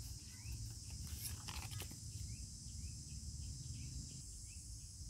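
Steady high-pitched drone of an insect chorus, with a short rising chirp repeating about twice a second and a low rumble underneath. A few sharp crackles, like dry leaves rustling, come about a second in.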